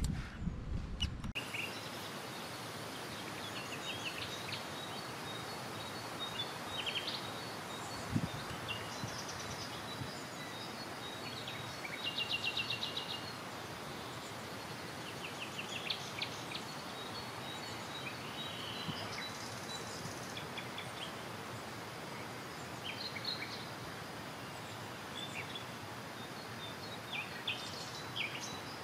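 Small birds chirping and trilling in short scattered phrases over a steady outdoor hiss. A low rumble cuts off about a second in.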